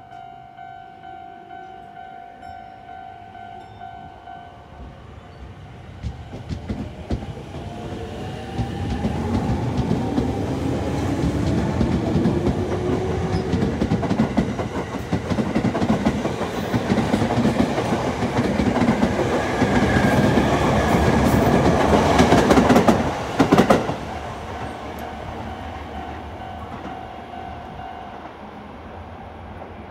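Sotetsu 10000 series electric train pulling out of the station. A steady tone sounds while it stands, then the motors whine, rising in pitch as it accelerates. The rumble and clacking of wheels over rail joints grow louder as the cars pass, then drop off sharply as the last car clears, about three-quarters of the way through.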